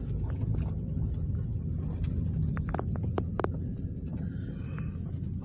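Low, steady rumble of a car driving slowly, heard inside the cabin. A few sharp, irregular clicks come about two to three and a half seconds in.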